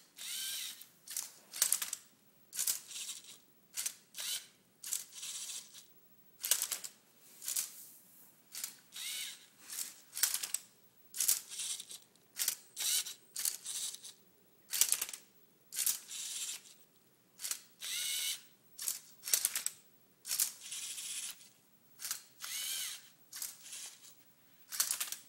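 LEGO Mindstorms NXT servo motors and plastic gears of a Tilted Twister Rubik's-cube robot whirring in short bursts, about one a second, as it tilts, holds and turns the cube through its solving moves.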